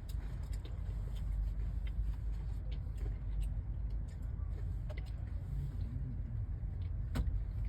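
Long freight train passing a level crossing, heard from inside a car as a steady low rumble. Scattered light ticks and clicks sound over it, with one sharper click near the end.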